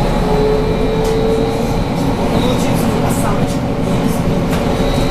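Cabin noise of a BKM 43300D trolleybus under way: steady road rumble with a continuous whine from its electric traction drive.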